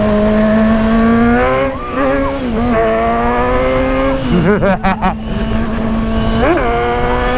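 Kawasaki Z1000's inline-four engine accelerating hard with a passenger aboard, its note climbing, dipping at a gear change about a second and a half in, then climbing again. Wind rumbles on the microphone underneath.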